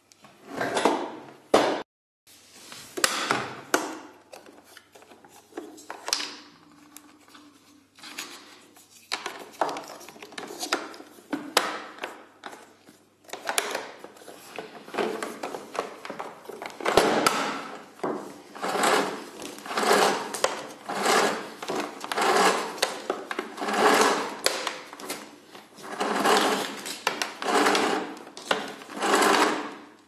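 Power cord being pulled out of the cord reel of a Dirt Devil DD7014 Popster canister vacuum cleaner in repeated pulls. The pulls are irregular at first and come about once a second from about halfway on, each one a short swell of noise from the reel and the cord.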